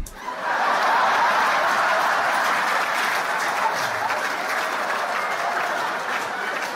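Stand-up comedy audience bursting into laughter and applause all at once, holding steady and easing off slightly near the end.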